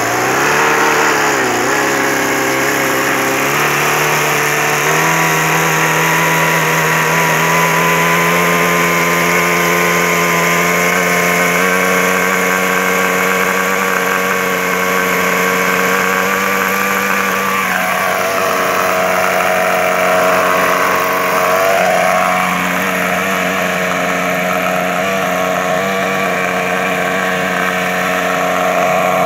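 Radio-controlled model helicopter's O.S. engine running, with the rotor spinning up: the pitch climbs over the first few seconds, then settles into a steady drone. About two-thirds of the way through the tone shifts as the helicopter lifts into a low hover.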